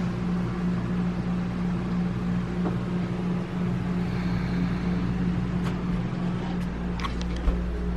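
Steady low mechanical hum, like a running motor, with a few light clicks in the second half and a short thump near the end.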